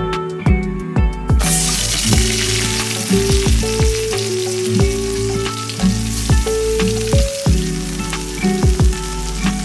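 Rohu fish pieces sizzling as they fry in hot mustard oil in a wok. The sizzle starts suddenly about a second and a half in and carries on, over background music.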